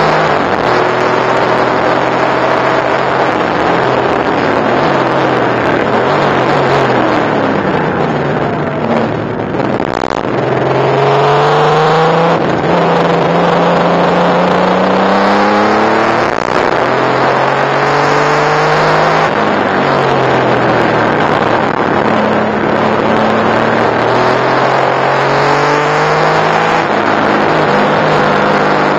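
Porsche 964 Turbo's turbocharged flat-six engine at racing speed, heard from inside the cabin over wind and road noise. Its pitch climbs again and again through the gears and drops at each shift, with a short dip in level about nine seconds in.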